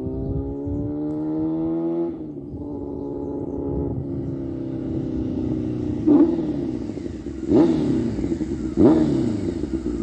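Exhaust of a Honda CBR600F2's inline-four engine through a homemade stainless steel muffler. The engine accelerates with a rising pitch for about two seconds, eases off, then runs steadily as the motorcycle approaches. In the second half come three quick sharp revs about a second and a half apart.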